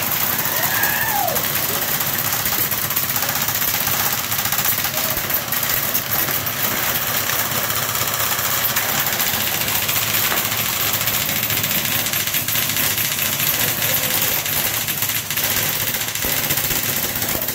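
Many airsoft guns firing on full auto at once: a dense, steady, rapid rattle of shots that does not let up.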